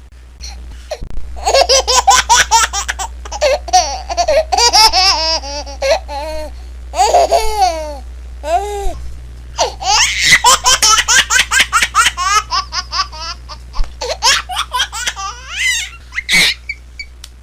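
A baby laughing in long runs of rapid, high-pitched giggles and belly laughs, with a short pause about halfway through.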